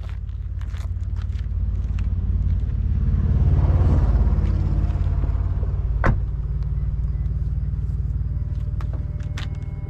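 A motor vehicle passing with a low rumble that swells to a peak about four seconds in and then fades, with a sharp click about six seconds in.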